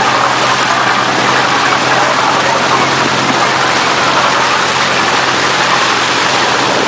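Motorized bangka running hard: a steady engine drone under loud rushing, splashing water churned up in its wake.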